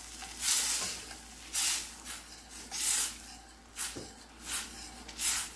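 Hot sauce of butter, hot sauce and honey sizzling in a skillet as it is stirred, the hiss surging about six times at irregular intervals.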